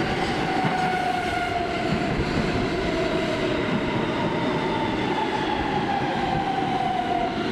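New York City subway train pulling into the station along the platform: a steady rumble of wheels on rail with a motor whine that falls slowly in pitch as the train slows.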